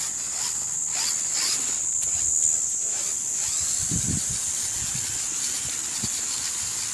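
A steady, high-pitched insect chirring, like crickets, that holds unchanged throughout, with a few short low rumbles about four seconds in.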